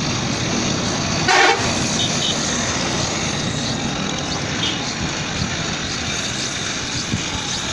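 Knife blade held against the grinding wheel of an old knife-sharpening machine, giving a steady hiss, with a short horn-like toot about a second in.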